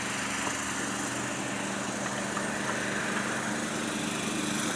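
A steady engine-like drone with a low hum under a broad hiss.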